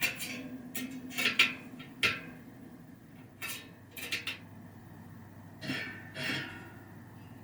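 Spoke key turning the spoke nipples of a bicycle wheel, a string of irregular light metallic clicks and clinks as the spokes are tightened a quarter turn on each side to pull a low spot of the rim round.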